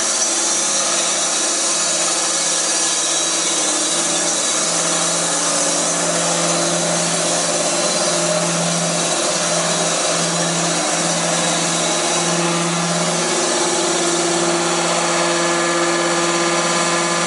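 Lynx EA sawmill running and sawing wood: a steady, loud machine noise with a hum underneath. The hum breaks up briefly in the middle, and a higher tone comes in during the second half.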